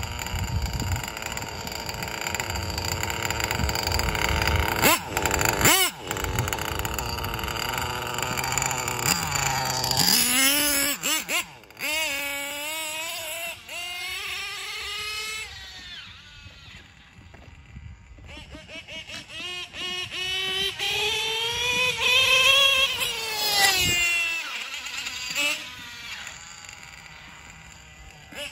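Nitro engine of an MBX7 RC truggy (Nova .28) running. It holds a steady pitch for about ten seconds, then revs up and down in rising and falling swoops as the truggy is driven.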